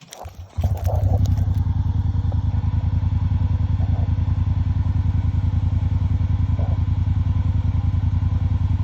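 A small engine catches about half a second in and then runs steadily with an even, fast low pulse, after a little clatter.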